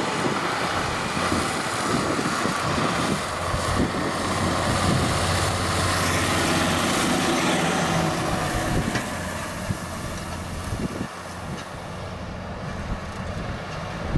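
John Deere tractor's diesel engine running as it tows a grain trailer past, growing louder as it passes close by and then fading away.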